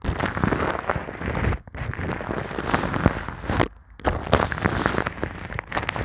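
Brush strokes scratching across a microphone's foam cover, close up: a dense run of crackling scratches with two brief pauses, the second just before four seconds in.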